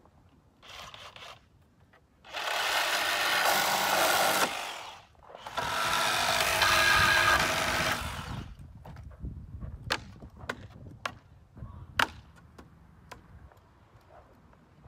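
Cordless drill driving screws into wood framing: a short burst, then two longer runs of about two seconds each. These are followed by a series of sharp knocks on the wood.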